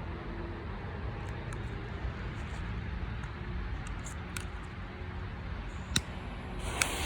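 Wind rumbling on the microphone, with a few faint ticks and two sharp clicks, one about six seconds in and one near the end.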